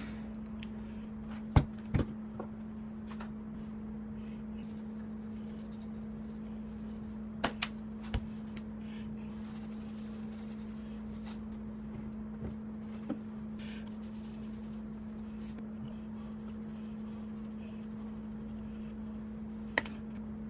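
A steady low hum, broken by scattered sharp clicks and knocks: two close together about a second and a half to two seconds in, a few more around seven to eight seconds, and one near the end.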